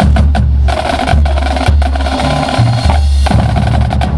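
Marching drumline of snare drums and tenor drums playing a rhythmic percussion feature, with a few brief breaks between phrases.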